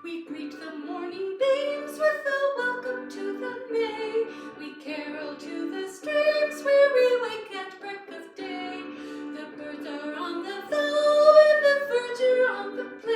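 A woman singing a melody over steady held accompaniment notes.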